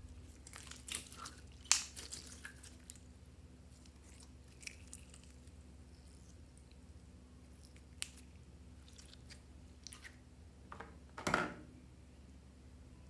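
Clear store-bought slime squeezed and stretched by hand, giving small wet clicks and crackles as trapped air pops, thickest in the first three seconds and then sparse. A little past eleven seconds comes a louder knock and rustle as a plastic slime tub is handled.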